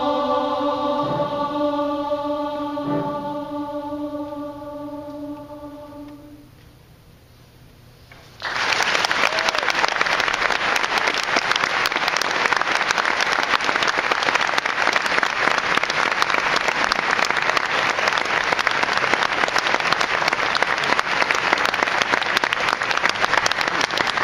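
A large mixed chorus of teenage voices holds a final chord that fades away over about six seconds. After about two seconds of quiet, the audience starts applauding all at once, loud and steady.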